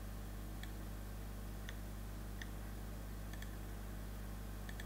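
A few faint computer mouse clicks, some in quick pairs, over a steady low electrical hum from the recording setup.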